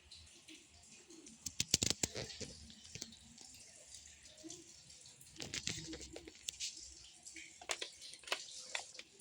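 Quiet handling noises: scattered light clicks and taps, bunched about a second and a half in, around five and a half seconds, and again near eight seconds.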